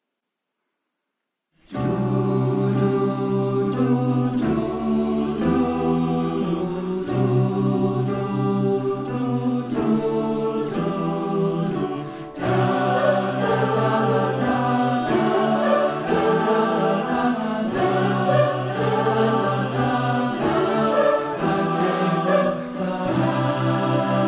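Mixed choir of women's and men's voices singing in several parts, with piano accompaniment. It comes in after about a second and a half of silence, with a short breath between phrases near the middle.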